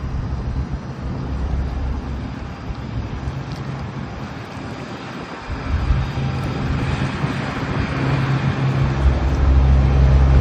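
A motor vehicle's engine running with a steady low hum under noise like wind or traffic, growing louder about nine seconds in.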